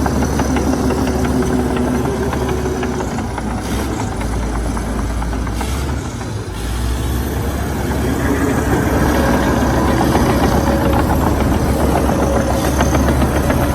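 Heavy diesel earthmoving machinery engine running steadily. It dips briefly a little past halfway, then runs louder again.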